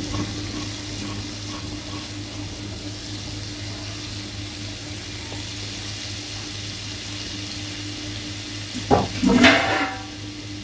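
Butter tempering with ginger, red chilli and salt (a tadka) sizzling steadily in a frying pan. There is a knock and a short louder sound near the end.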